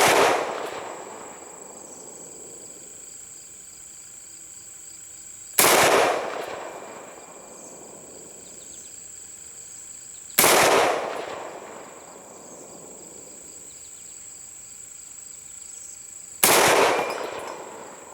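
Shots from an International Harvester M1 Garand .30-06 rifle: three sharp cracks about five to six seconds apart, each with a long echoing tail. The tail of a shot fired just before fades at the start. Crickets chirp steadily behind.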